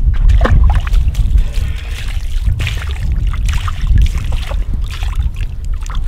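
White domestic duck splashing and sloshing about in a water-filled rubber tub, with irregular splashes, over a heavy wind rumble on the microphone.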